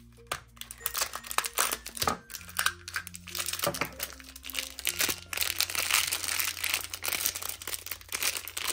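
Plastic toy packaging crinkling and tearing as it is opened by hand. There are scattered rustles and clicks at first, then dense crinkling from about halfway through.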